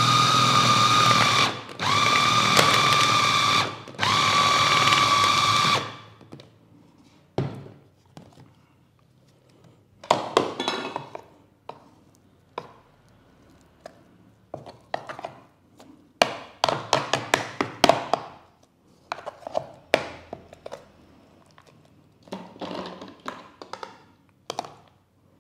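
Electric food chopper motor running in three pulses of about two seconds each with a steady high whine, mixing ground mackerel paste with sago flour. After that a spoon scrapes and knocks against the plastic chopper bowl in short irregular clicks.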